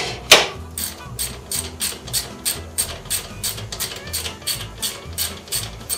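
Socket ratchet wrench clicking steadily, about three clicks a second, as it turns a bolt on a lawnmower's engine housing, with one sharper knock about a third of a second in.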